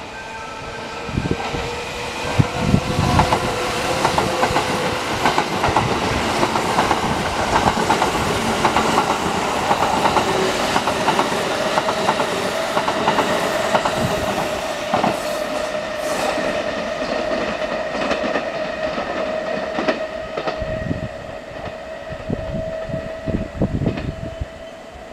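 Kintetsu limited-express electric train running through the station. Its wheels clatter rhythmically over the rail joints under a steady, slightly rising motor whine. The sound swells about a second in and eases off near the end as the train clears the platform.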